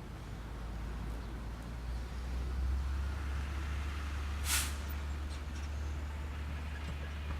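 Steady low rumble, with one short, sharp hiss a little past halfway.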